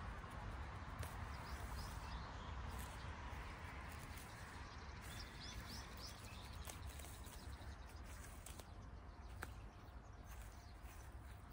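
Faint open-field ambience: a steady low rumble with a few small bird chirps now and then, and scattered light clicks.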